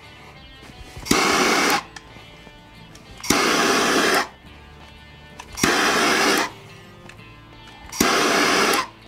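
Handheld butane torch blasting in four short bursts, each under a second, with a steady hissing rush and a sharp start, heating the vinyl wrap so it conforms to the rifle's dust cover. Faint background music plays between the bursts.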